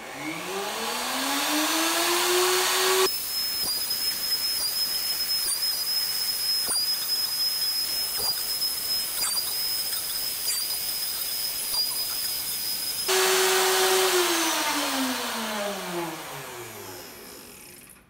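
Plunge router with a dovetail bit winding up to speed over about three seconds. It runs at full speed for about ten seconds with a steady high whine while it cuts dovetails in wood through the jig's comb template, then spins down with a falling whine.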